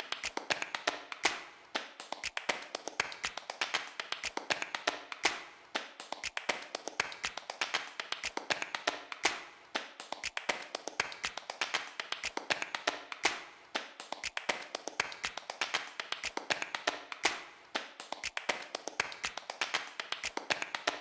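Background music made of light, rhythmic tapping and clicking percussion, with a steady pulse of stronger accents every couple of seconds.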